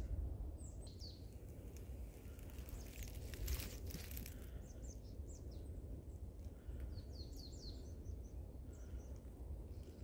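Small birds calling outdoors: short, high, down-sweeping chirps in scattered bursts, with a quick run of them around seven to eight seconds in, over a steady low rumble. A brief rustling noise about three and a half seconds in.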